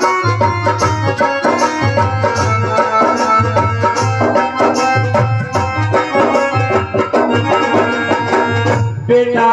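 Live instrumental interlude of a Hindi devotional song: an electronic keyboard plays a melody over a steady hand-drum rhythm and a repeating bass beat.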